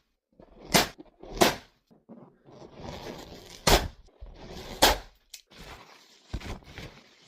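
Balloons popping: four sharp pops, two in quick succession near the start and two more about a second apart in the middle, with softer rustling between them and a couple of light clicks near the end.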